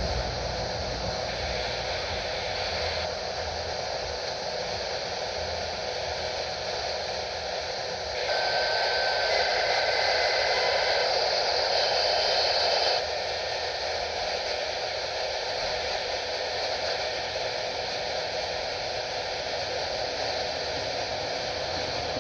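Radio receiver hissing static with no station. The hiss grows louder for about five seconds near the middle, with a few faint short whistles, then settles back.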